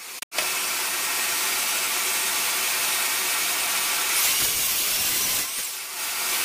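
DeWalt sliding compound miter saw running and cutting treated 2x6 lumber: a steady saw noise with a brief dip about five and a half seconds in.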